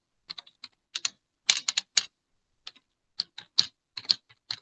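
Typing on a computer keyboard: irregular single keystrokes, with a quick run of several keys about one and a half to two seconds in.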